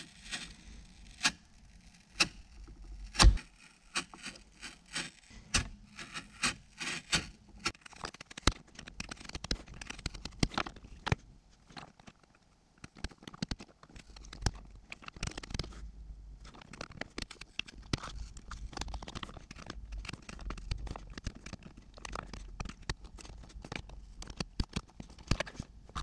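Utility-knife razor blade scraping and scoring through hard plastic dash backing, stroke after stroke, in an irregular run of sharp scratches and clicks. One louder knock about three seconds in.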